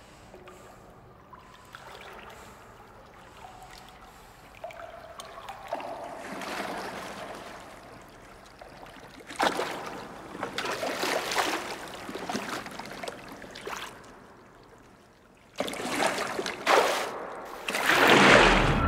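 Swimming-pool water splashing and sloshing. It starts faint, comes in surges of splashing, and is loudest near the end as a swimmer strokes through the water.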